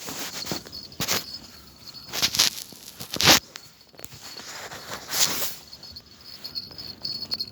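Insects chirring steadily in a high, even band, under several loud, brief rustling noises spread over the first five seconds or so.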